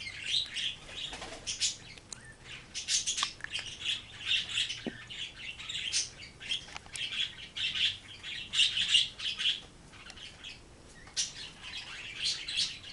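High-pitched chirping and twittering in irregular bursts, on and off throughout.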